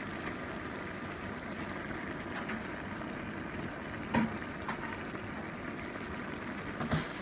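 Mushrooms and onion simmering in butter and liquid in a large pot, a steady bubbling sizzle. Two light knocks, about four seconds in and near the end.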